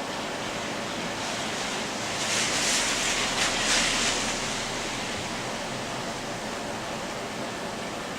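Steady hiss of falling rain, swelling louder for about two seconds near the middle before settling back.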